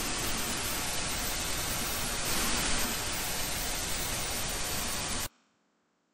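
Television static: a steady hiss of white noise that cuts off suddenly about five seconds in.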